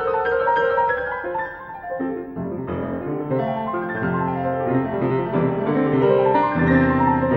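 Solo grand piano playing fast classical passagework. It starts with rapid, glittering runs high in the treble, and about two seconds in fuller chords and bass notes join.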